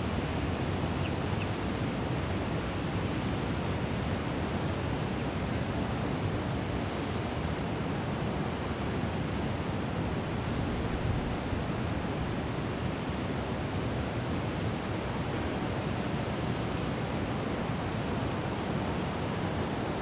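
Steady outdoor rushing noise, even and unbroken, heaviest in the low range, with no birdsong or other distinct sounds standing out.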